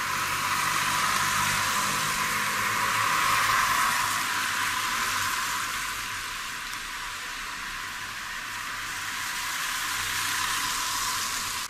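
Car tyres hissing on wet asphalt as cars drive past on a rain-soaked street. The hiss swells twice, with the nearest pass near the end.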